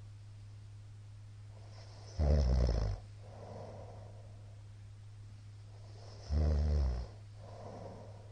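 A middle-aged man snoring in his sleep: two loud snores about four seconds apart, each under a second long and followed by a softer breath, over a steady low hum.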